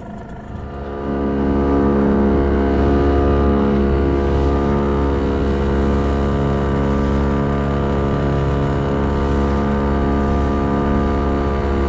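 Small wooden fishing boat's motor speeding up about a second in, then running steadily at cruising speed.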